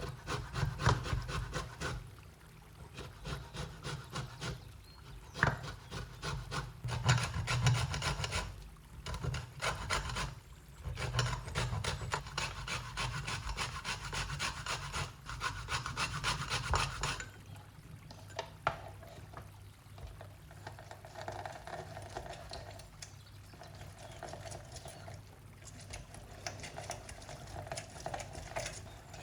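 Food being scraped across a hand grater in quick, repeated strokes. The grating stops about two-thirds of the way through, leaving only fainter, softer handling sounds.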